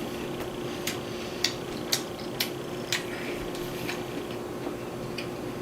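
Close-up chewing of a meat-and-cheese sub sandwich: a run of sharp, wet mouth clicks, several about half a second apart, over a steady low hum.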